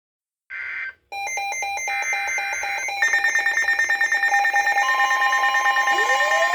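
Electronic weather-alert alarm tones heralding a tornado warning: a short burst of data noise, then rapid beeping, joined by steady high tones, with a rising siren-like tone near the end.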